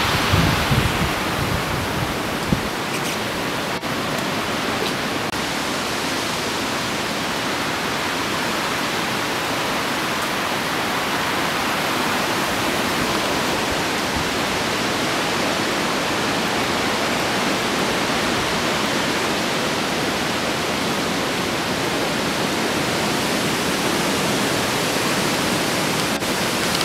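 Steady rush of hurricane wind and rain through tall evergreen trees. Low buffeting of wind on the microphone fades out in the first couple of seconds.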